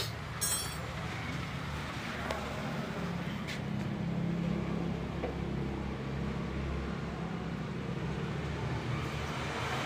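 Steady low rumble of motor-vehicle noise, a little louder through the middle, with a couple of faint clicks.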